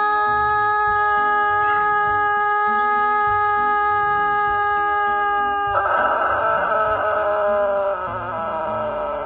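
Background music holding one long steady note over a moving bass line, then a rooster crowing once for about two seconds, starting about six seconds in.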